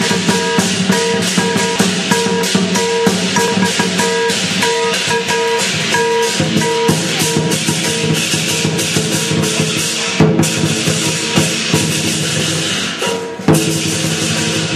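Chinese lion dance percussion: a big drum, clashing cymbals and a gong playing a fast, steady, dense beat, with a ringing pitched tone repeated in short notes through the first half.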